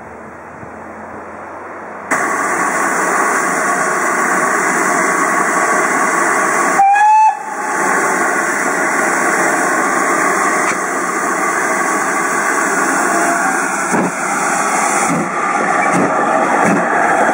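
GWR 4200 class 2-8-0 tank engine letting off a steady, loud hiss of steam. About seven seconds in its steam whistle gives one short blast. Near the end a few low exhaust beats sound as the engine starts to move.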